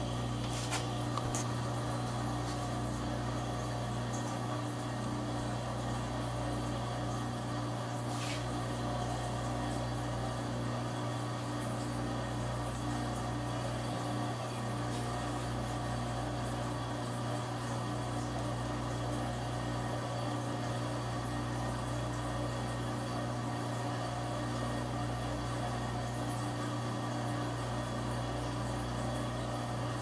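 Steady low hum with a few faint clicks.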